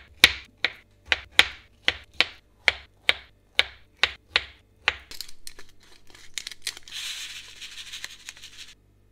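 A knife chopping food on a cutting board, two to three even strokes a second for about five seconds, then a pepper mill grinding for a second or two near the end.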